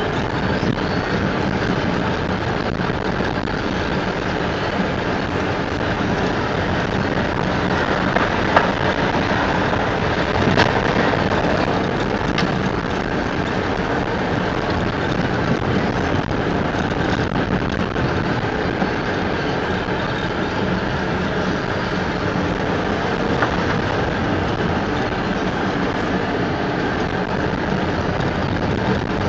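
Car driving slowly over a rough, patched lane, heard from inside the cabin: a steady mix of engine and tyre noise, with a few sharp knocks near the middle.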